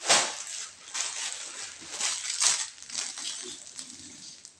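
Clear plastic packaging crinkling and rustling in irregular bursts as it is pulled open and handled, loudest right at the start.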